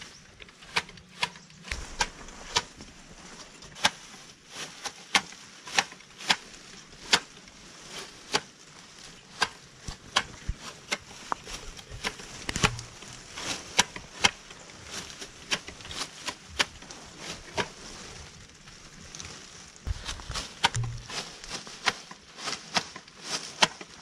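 Tea-harvesting shears snipping through tea bushes: sharp, irregular clicks, about two a second.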